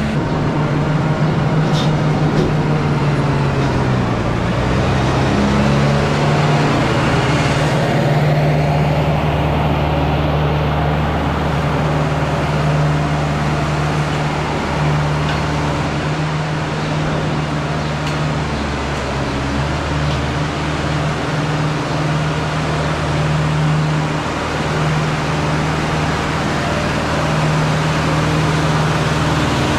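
Steyr 9094 tractor's 94 hp diesel engine running steadily under heavy load while driving a Trioliet feed mixer wagon filled with close to 7 tonnes of mostly grass. The engine note sags and picks up again a few times as the mixer draws on it.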